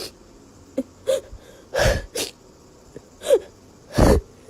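Two sharp sneezes about two seconds apart, with short high yelp-like sounds between them.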